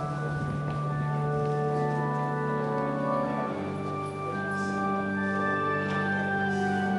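Organ music: slow, long held chords, moving to a new chord about halfway through.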